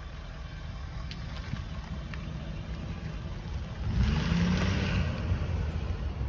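Ford 6.7-litre V8 diesel engine running with a steady low rumble. About four seconds in it gets louder, with a brief rise and fall in pitch.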